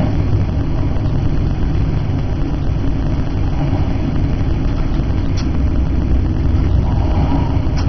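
Steady low rumble of a diesel train running through a tunnel, heard from the driver's cab: engine and wheels on the rails, with a couple of faint high ticks.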